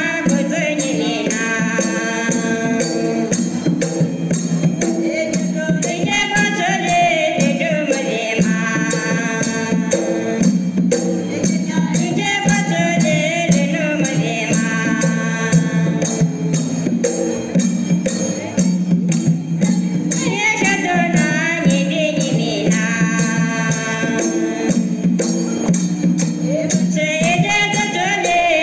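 Folk dance music: voices sing a melodic phrase that returns every six or seven seconds over a steady low drone and a fast, even beat of jingling percussion.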